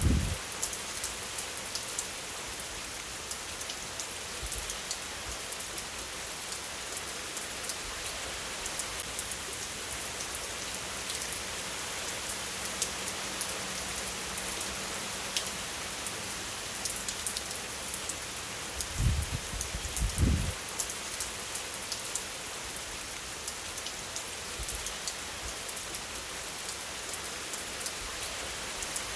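Steady rainfall: an even hiss of rain with many small drop ticks throughout. A couple of brief low thuds come about two-thirds of the way in.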